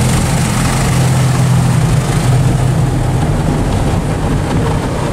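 Automatic tunnel car wash heard from inside the car: water and foam spraying over the windshield on top of a steady low machinery hum. The high hiss of the spray eases after about two seconds.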